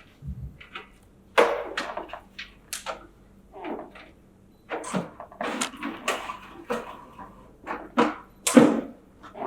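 Plastic and metal parts of a slushy machine being handled and fitted during set-up: a string of irregular knocks, clicks and rattles, the loudest near the end.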